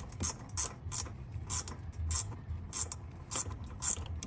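An 8 mm ratcheting wrench clicking as it backs out an ignition-coil mounting bolt, in repeated short runs of sharp clicks about two a second.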